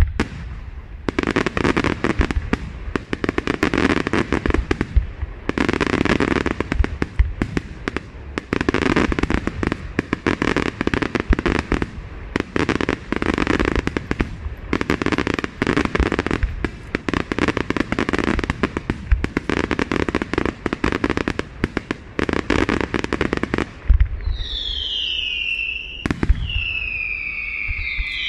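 Aerial fireworks display: a dense barrage of shell bursts and crackles that comes in surging waves. Near the end the bangs give way to several whistling effects, each falling in pitch.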